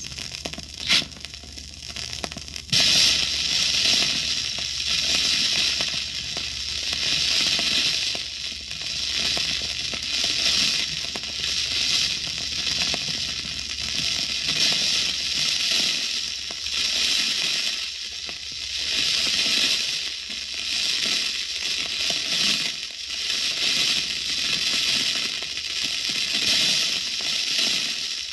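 A match is struck, and about three seconds in a lit gunpowder fuse catches and burns with a crackling, sputtering hiss that surges and dips unevenly.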